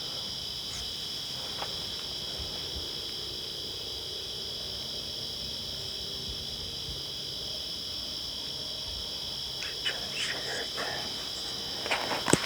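Dense chorus of field crickets, a steady trilling at two pitches. A few sharp clicks and rustles near the end.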